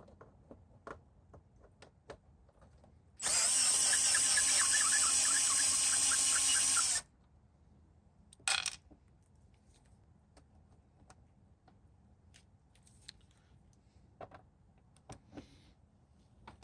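Power drill spinning a hex bit to back out screws. It runs steadily for about four seconds, then gives a brief second burst. Light clicks and taps of handling come before and after.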